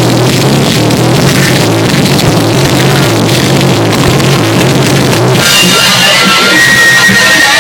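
Loud rock music with a drum kit and guitar; the sound of the mix changes about five seconds in.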